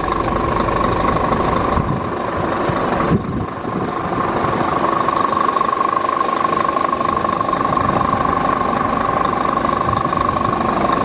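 Scania R490's 13-litre six-cylinder diesel idling steadily, with a steady high tone over the engine's running. A single knock comes about three seconds in.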